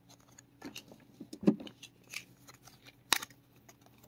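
Small, scattered clicks and taps of dental X-ray films being handled and pressed into a film mount, with a sharper click about three seconds in.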